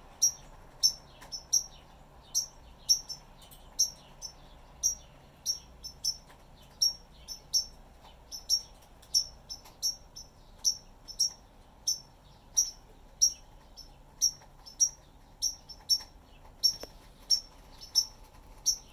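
A small bird giving short, high chirps over and over, about two a second, some of them in quick pairs.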